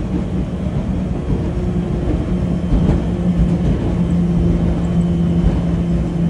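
Arc One electric boat running at about 40 mph: a steady rush of wind over the windshield and water past the hull, with a steady low hum underneath and no engine noise.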